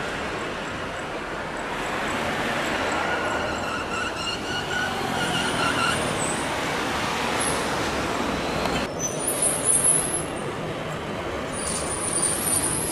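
Boeing 737-800's twin CFM56-7B turbofans at takeoff thrust as it lifts off and climbs away: a steady jet roar with a faint whine. About nine seconds in, the roar cuts off abruptly, and a quieter rumble with a few high chirps follows.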